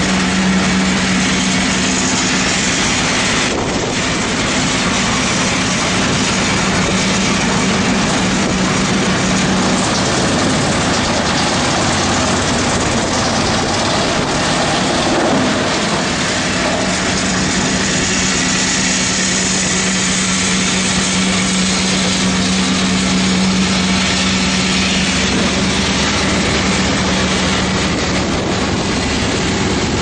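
Drum wood chipper running: a loud, steady mechanical drone with a low hum underneath.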